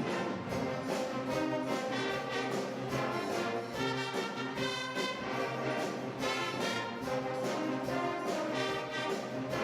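Orchestra and band playing together in rehearsal, with the brass prominent.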